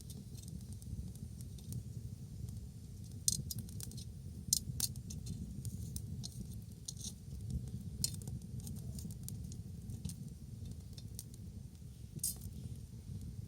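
Wood bonfire crackling, with scattered sharp pops over a steady low rumble; the loudest pops come about three, four and a half, and twelve seconds in.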